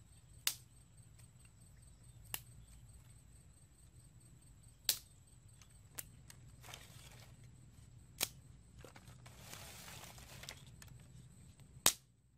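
Dry sticks knocking against each other as they are set into a small fire pit dug in the ground: six sharp wooden clacks a second or more apart. There is a brief rustle of sticks and sand about ten seconds in.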